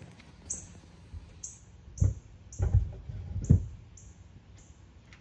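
A small bird chirping over and over, short high chirps about twice a second. A few dull low thumps, the loudest sounds, come about two to three and a half seconds in.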